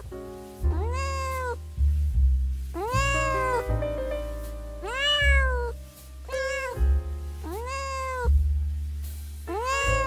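Tabby cats meowing, about six meows a second or two apart, each rising then falling in pitch, over background music.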